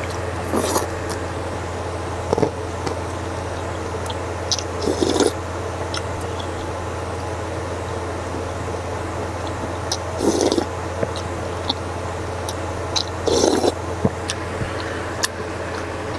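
Close-up eating sounds: slurping and chewing of cold jjamppong noodles and broth, in about five short bursts with a few sharp clicks between them. A steady low hum runs underneath.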